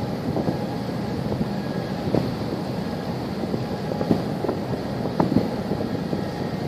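Wind buffeting the microphone: a steady rush with occasional low gusts.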